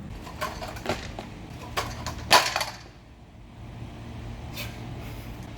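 Stunt scooter clattering and knocking on pavement: about five sharp knocks, the loudest about two and a half seconds in, over a low steady rumble.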